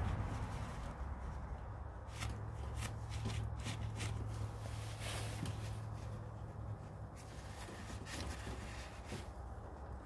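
Paper towel rustling and rubbing in short irregular strokes as cutting lubricant is wiped off bolts, over a steady low hum.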